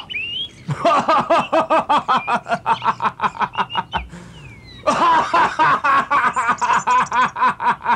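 A man laughing hard in rapid, even ha-ha pulses. There are two long bouts: the first starts just under a second in, and the second starts about five seconds in after a break of about a second.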